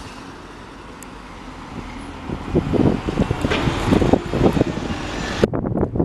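A passing vehicle's rumble, growing louder from about halfway in, with irregular wind buffeting on the microphone. The sound changes abruptly near the end.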